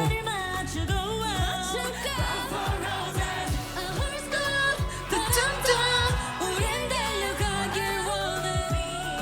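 K-pop song with a female lead vocal singing runs and ad-libs over a band track with a steady kick-drum beat.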